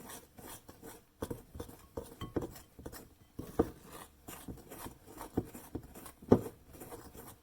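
A spoon stirring egg white into icing sugar in a bowl, with irregular scraping and clinking against the bowl as the stiff mixture starts to combine. The loudest knock comes about six seconds in.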